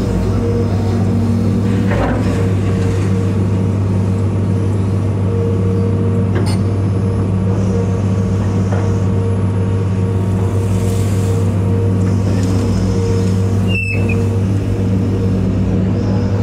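Diesel engine of a large tracked excavator running steadily under load, heard from inside the cab as it digs and swings. There are a few light knocks, and a brief squeak near the end.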